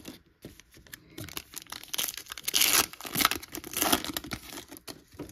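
Foil wrapper of a 2023 Topps Chrome trading-card pack being torn open and crinkled, in a run of tearing and crinkling bursts starting about a second in.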